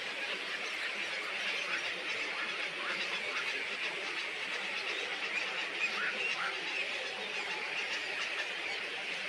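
Dense, steady chorus of many small birds chattering and chirping together, with a few short rising and falling calls standing out about six seconds in.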